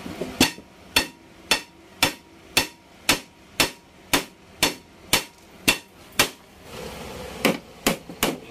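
Hammer blows on the metal airframe structure, knocking a corroded stringer loose. About a dozen sharp strikes at a steady two a second, then after a short pause three quicker blows near the end.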